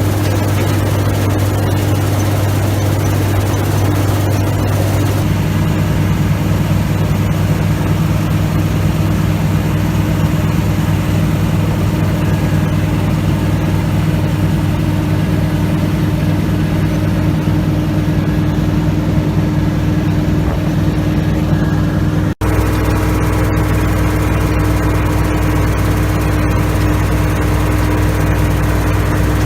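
Combine harvester's diesel engine running steadily and loudly, the tone changing abruptly twice where clips are joined.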